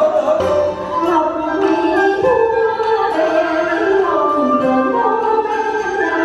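Traditional Vietnamese music with a melody that slides and wavers in pitch; it breaks off abruptly at the end.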